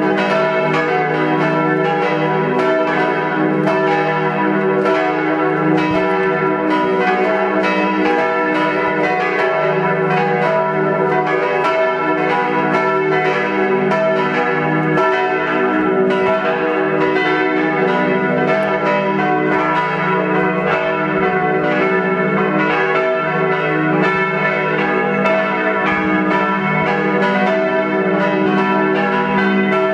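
Four bronze church bells tuned e', f♯', g♯' and b' ringing together in a partial peal. Three were cast by Czudnochowsky in 1950 and one by Kortler in 1907. Their strikes overlap in a dense, unbroken stream over long ringing tones.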